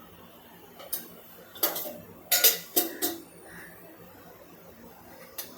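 Metal cookware clinking and knocking as a pan and utensils are handled: a quick run of sharp clinks in the middle and one more near the end.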